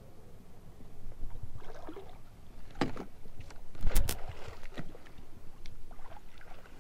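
A landing net sloshing through water and a hooked fish splashing at the surface as it is netted, in several irregular splashes. The loudest is a sharp splash about four seconds in.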